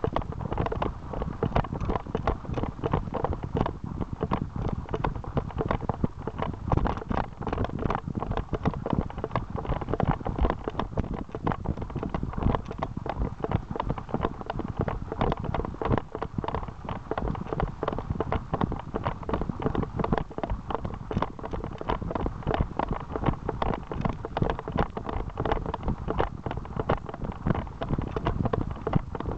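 A runner's footfalls on a dirt forest trail in a quick, steady rhythm, heard through a camera carried in the hand, which jolts with each stride.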